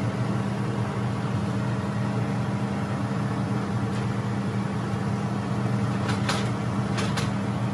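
Steady low mechanical hum from a running motor, with a few short scrapes and taps of a wooden spatula against a non-stick grill pan near the end.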